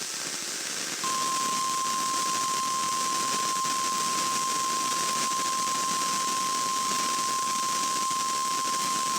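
NOAA Weather Radio warning alarm tone: a single steady 1050 Hz tone sounding the weekly test alarm, starting about a second in over radio static hiss.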